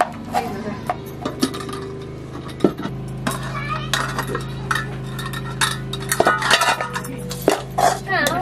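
Cooking pots, dishes and utensils clinking and knocking against each other in irregular, sharp strikes.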